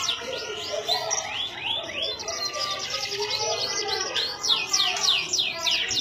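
Domestic canary singing: quick runs of repeated high, sweeping whistled notes and trills, phrase after phrase.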